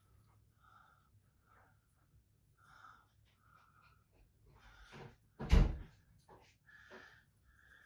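Faint short scraping and dabbing sounds of a small brush working a thick clay mask, and a single heavy thump about five and a half seconds in.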